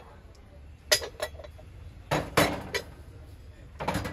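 Brass kitchen utensils clinking and knocking together as they are handled and set down. There are a couple of light clinks about a second in, heavier knocks a second later, and a cluster of clatter near the end.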